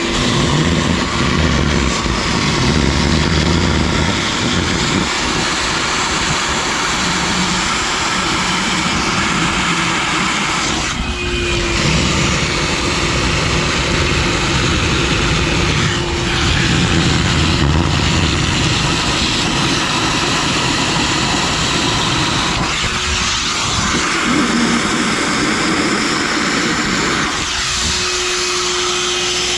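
Wet/dry shop vacuum running in wet-vac mode, sucking standing water from a car trunk through a small nozzle. Its steady motor hum turns rough and choppy while it draws up water, and comes back clear for moments now and then, when the nozzle takes in air.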